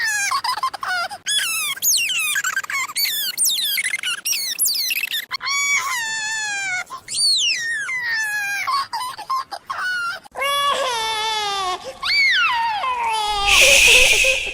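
Cartoon toddler pig George crying: a string of loud, high-pitched wails, each falling in pitch and wavering, cut one after another with abrupt breaks. Near the end a loud hissing noise bursts out for about a second.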